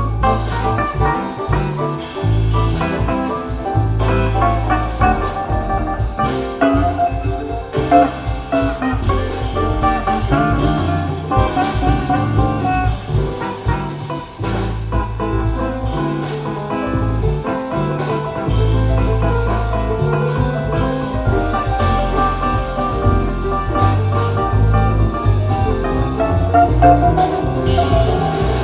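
Jazz record played back on a vinyl hi-fi system: a small band with horns, drums and bass, cymbals ticking steadily over the bass line.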